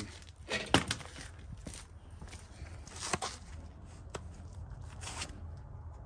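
A few scattered knocks and clicks from handling a cordless impact wrench as it is taken off the wheel and set down on concrete, the loudest about a second in, over a low steady rumble. The wrench itself is not running.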